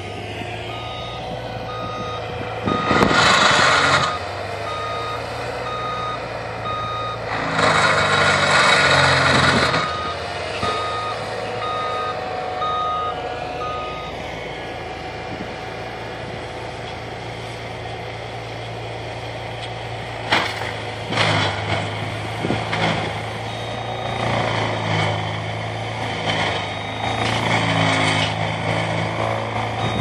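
Tracked forestry mulcher clearing brush: a steady diesel engine hum with a back-up alarm beeping about once a second through the first half and again near the end. Two loud rushing bursts come about three and eight seconds in, and a few sharp cracks come around twenty seconds in.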